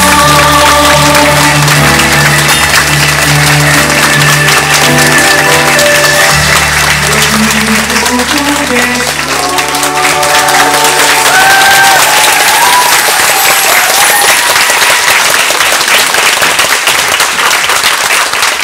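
Curtain-call music from the musical playing over continuous audience applause. About halfway through, the bass of the music drops out, leaving mostly clapping with a thinner melody on top.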